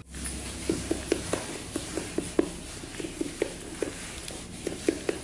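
Quick, uneven taps, about three or four a second, from a thin hand tool jabbed into the ends of a tightly packed round bundle of paper firecracker tubes.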